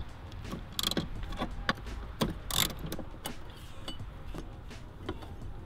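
Irregular light clicks and knocks of hands and tools working plastic clips and engine-bay parts, over a faint low hum.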